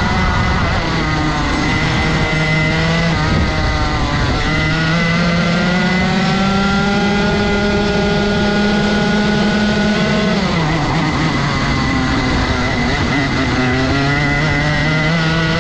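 Rotax 125 cc single-cylinder two-stroke kart engine on a lap at racing pace. Its revs climb steadily along the straights and drop sharply twice, about four seconds in and again about ten seconds in, as it comes off the throttle for corners.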